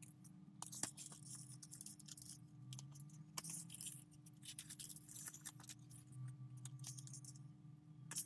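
Thin metallic foil paper crinkling and rustling in short bursts as sheets are peeled from their backing and pressed down by hand, over a faint steady hum.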